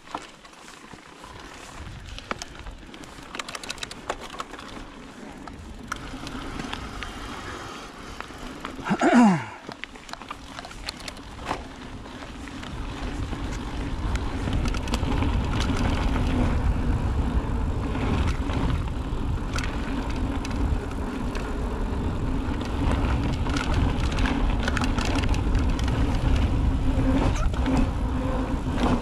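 Mountain bike riding down a dirt trail, with the bike rattling and knocking over the ground and wind rumble on the microphone growing louder as speed builds. About nine seconds in, a brief loud squeal falls sharply in pitch.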